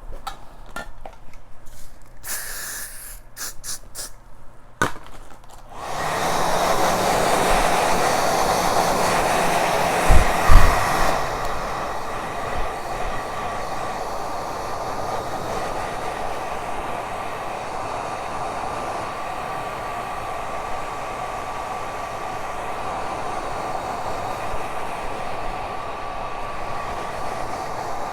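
Handheld hair dryer switched on about six seconds in and running steadily, a rushing blow with a faint constant whine, louder for its first few seconds. A couple of low thumps come near the middle.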